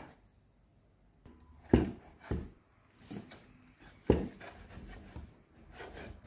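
Kitchen knife knocking on a wooden cutting board while chopping raw beef: a few separate strikes, two about half a second apart near two seconds in and another about four seconds in, with fainter taps between.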